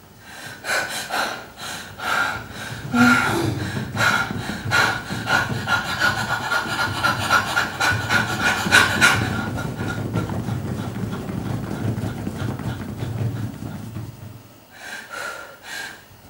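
A woman breathing fast and hard through her open mouth, rough panting breaths about two a second that ease off after about ten seconds and pick up briefly again near the end. This is forced, deep breathing of the holotropic kind.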